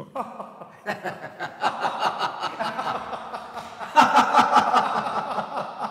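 People laughing and chuckling in quick bursts, louder about four seconds in.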